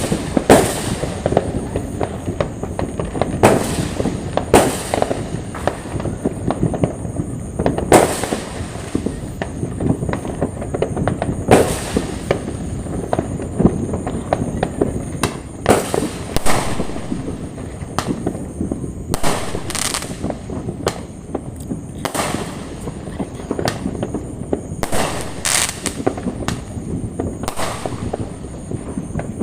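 Fireworks going off without pause: a dense run of crackles and pops, with louder bangs every second or two.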